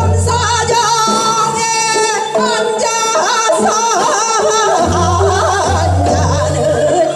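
Women singing Seodo sori, the folk song of Korea's northwestern provinces, through microphones, their voices wavering and sliding in pitch over instrumental accompaniment.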